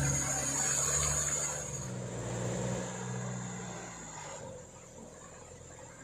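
Diesel engine of a 4x4 palm-oil truck running under load as it pulls through deep mud. The engine drops back about two seconds in and fades to a faint, distant drone by about four seconds.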